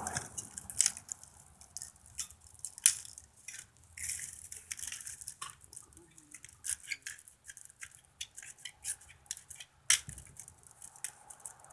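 Packing material being cut and pulled off a new bicycle: irregular sharp clicks, snips and crackles of plastic and cardboard.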